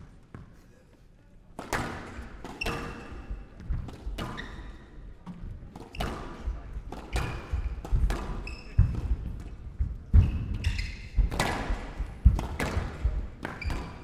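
Squash rally: the ball knocks sharply off rackets and the court walls, starting about a second and a half in and going on in a quick irregular series, with short squeaks of shoes on the court floor.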